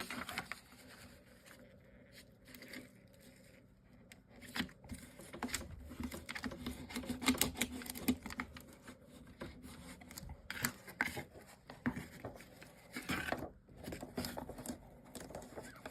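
Hands working a chipboard box and its adhesive vinyl hinge strip, with scattered rubbing, scraping and tapping of card and tape as the strip is peeled up and pressed back down. It is quieter for the first few seconds, then busier.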